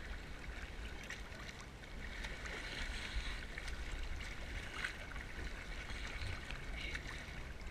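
Sea water sloshing and lapping around a waterproof action camera held at the surface in choppy water, with small splashes and a steady low rumble.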